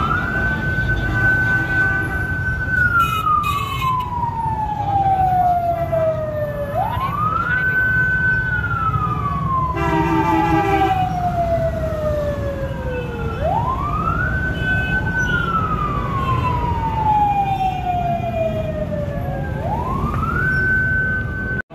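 Emergency vehicle siren on a slow wail: each cycle rises quickly, holds high for a moment, then falls over several seconds, repeating about every six and a half seconds over a steady rumble of street traffic. A short vehicle horn sounds about halfway through.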